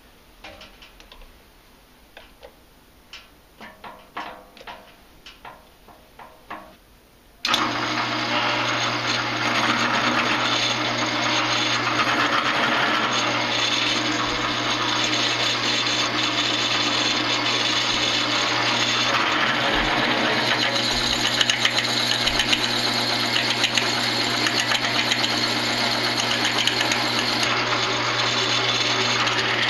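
Light clicks and knocks as the aluminum hose adapter is lined up in the drill press vise. About seven seconds in, the drill press motor starts suddenly and runs steadily while a 1/2-inch bit drills into the aluminum.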